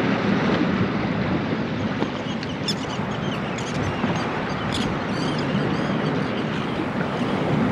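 Steady wash of sea and surf against a beach, with a few short high chirps about three to five seconds in.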